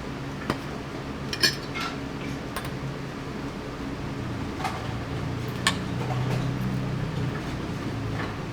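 A few scattered clinks and knocks of dishes and cutlery, the sharpest about one and a half seconds in, over a steady low hum.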